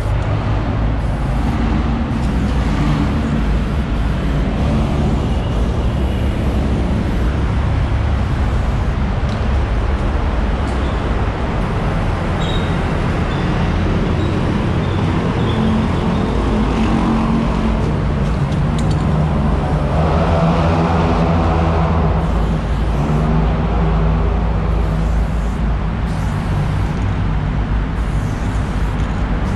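Steady road traffic rumble, with a heavy vehicle's engine droning louder about twenty seconds in.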